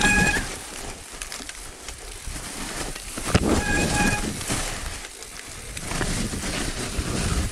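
Mountain bike rolling downhill over a rough, leaf-covered trail, tyres and frame rattling and clattering, with two short steady squeals of the brakes, one right at the start and one about three and a half seconds in.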